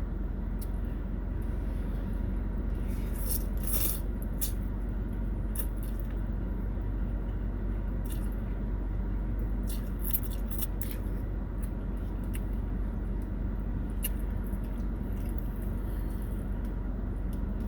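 Eating from a container of beef pho: scattered short clicks and scrapes of a plastic fork against the container, with chewing, over a steady low hum.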